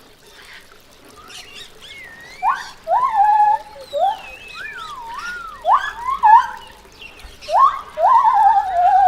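A series of animal calls starting about two seconds in, each rising sharply and then holding a wavering tone that falls slightly. The longest call comes near the end. Fainter, higher gliding whistles overlap the middle calls.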